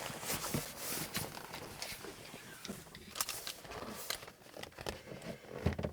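Handling noise from working the sleeper curtain and cabinet panel into place: scattered light clicks, taps and rustling, with a heavier knock near the end.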